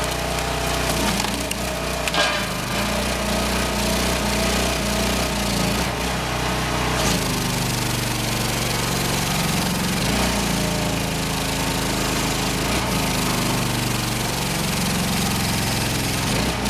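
Firewood processor running steadily as its hydraulic ram drives a log through the splitting wedge, the wood cracking and splintering as it splits, with one sharp crack about two seconds in.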